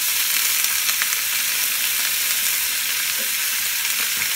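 Water sizzling in a frying pan of hot olive oil with sautéing spices, green onions and cilantro stems: a steady, loud hiss from the water hitting the hot oil.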